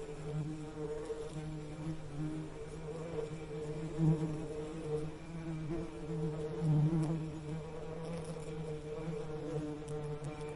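Bees buzzing: a steady, low droning hum with overtones that wavers a little in pitch and swells louder briefly about four and seven seconds in.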